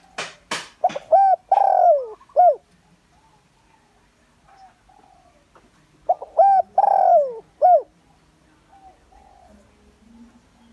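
Spotted dove singing: two cooing phrases about five seconds apart, each of short coos around a long falling coo. A quick run of sharp clicking notes comes in the first second.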